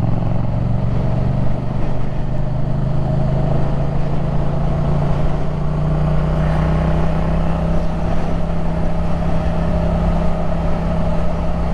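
Yamaha MT-07's parallel-twin engine running at a steady cruising speed on the road, its note held almost constant.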